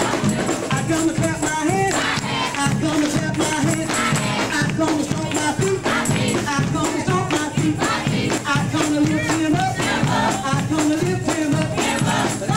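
Upbeat gospel music playing loud, with singing voices over a steady, driving beat with shaken percussion.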